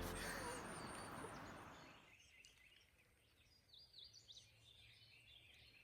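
Music fading out over the first two seconds, then faint wild birdsong: scattered short chirps and whistled notes.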